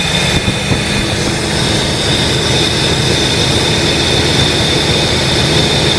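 A machine running steadily, with a high whine over a dense rushing noise.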